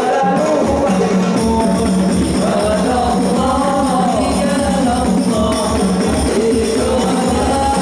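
Men's voices singing an Islamic sholawat devotional song through microphones, over a hand drum keeping a steady beat.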